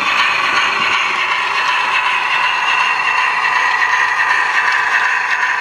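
Model V2 steam locomotive running along the track: a steady whir from its motor and wheels on the rails, the pitch drifting slightly lower.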